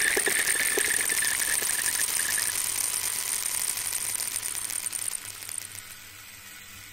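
Electronic crackling, clicking noise played from a laptop, fading slowly, with a thin high tone in it that stops about two and a half seconds in. At the very end, a sudden loud burst that sweeps quickly down in pitch.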